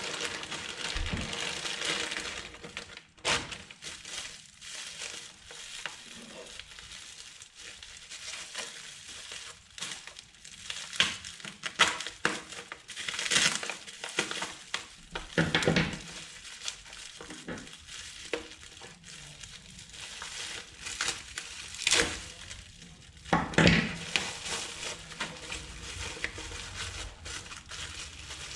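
Packaging being unwrapped by hand: plastic and paper crinkling and rustling in irregular bursts, with a few knocks of the parcel being handled.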